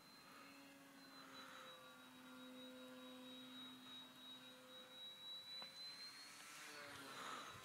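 Faint, distant hum of the electric motor and propeller of a Skyartec Cessna 182 RC model plane in flight, fading in and out, with a steady thin high whine. A brief louder rush comes near the end.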